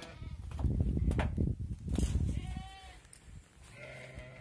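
Sheep and lambs bleating: a higher-pitched lamb's bleat about halfway through and a lower sheep's bleat near the end. A low rumble fills the first half.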